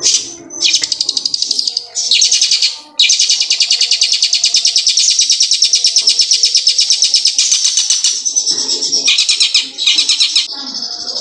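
Caged long-tailed shrike (cendet) singing a loud, rapid rolling song that imitates the ciblek gunung, a prinia. Short bursts of fast high notes come first, then one long unbroken trill of about four and a half seconds, then more short bursts.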